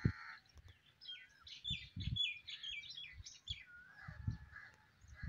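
Wild birds calling: a harsh, caw-like call at the start, then a quick run of high chirps, then a whistled note near the end. Low thuds of wind or handling on the microphone run underneath.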